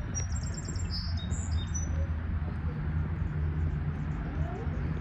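Small birds chirping, a quick run of short, high notes in the first two seconds, over a steady low rumble.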